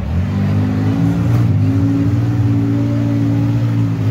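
Demolition-derby minivan's engine revving hard. The revs climb over the first second, then hold high and steady.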